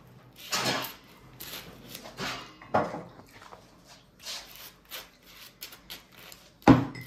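Babies eating at their high chair trays: scattered rubbing and small knocks of food and dishes being handled, with one sharp knock near the end.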